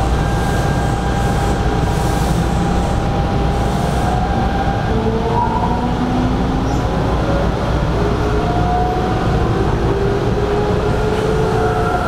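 Hanshin 5500-series electric train running, a steady rumble with several faint tones sliding slowly up and down in pitch over it.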